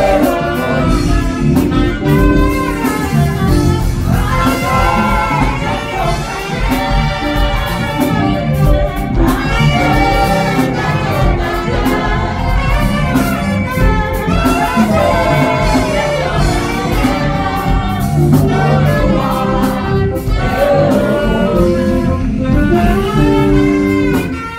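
Two saxophones playing a jazzy gospel worship tune live, over a backing band with a steady beat.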